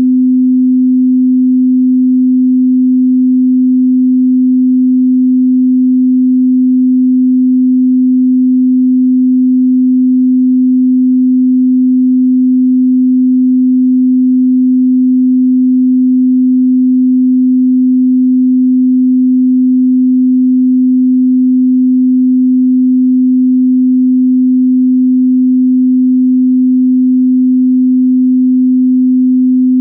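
A 255 Hz pure sine tone, held steady and loud with no change in pitch or level.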